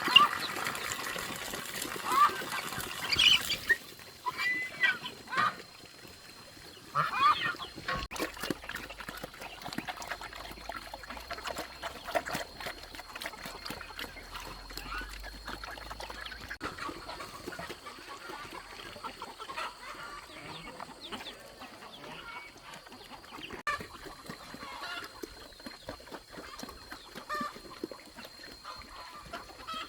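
Farm poultry clucking and calling, with a busy cluster of calls in the first few seconds and then scattered calls. A faint steady high-pitched tone runs in the background through most of it.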